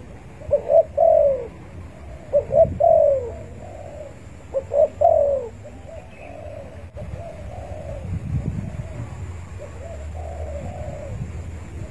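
Spotted dove (tekukur) cooing: three loud coo phrases about two seconds apart, each two short notes followed by a longer falling note. Fainter coos follow in the second half over a low rumble.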